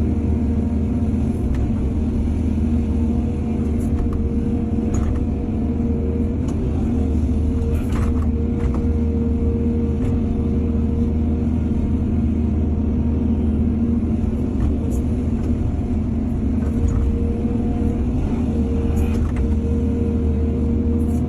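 Heavy diesel engine of an excavator running steadily under load, with a few short metallic clanks now and then.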